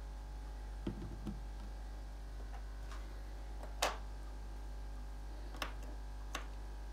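Small objects set down on a wooden tabletop: a soft knock as a plastic tub of water and plants is put down about a second in, then a few sharp clicks as metal tweezers and a plastic glue tube are laid on the table, the loudest about halfway through.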